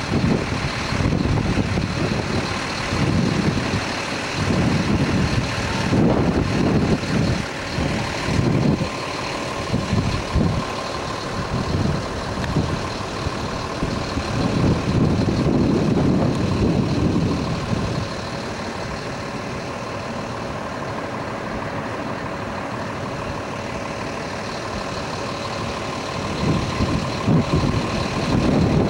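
Low, uneven vehicle rumble with swells, steadier and a little quieter from about 18 seconds until it swells again near the end.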